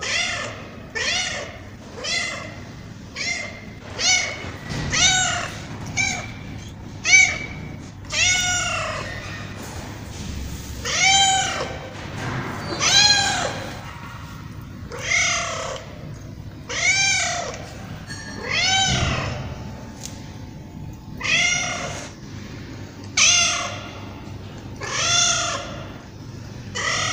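Tabby cat meowing over and over, about one meow every one to two seconds, each call rising then falling in pitch, with a brief pause partway through.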